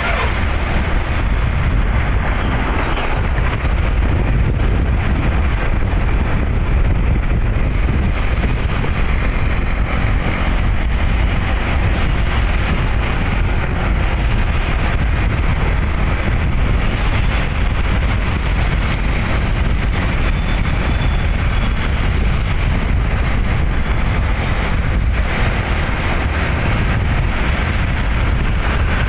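Steady vehicle and road noise, a dense low rumble, with wind buffeting the microphone while moving in traffic.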